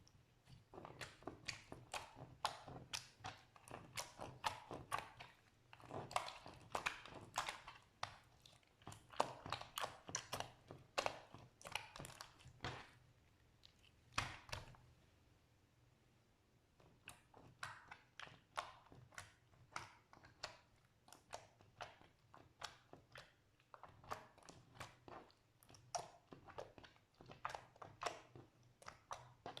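Slime being squished and kneaded by hand, giving dense runs of small crackling pops and clicks, with a brief pause about halfway.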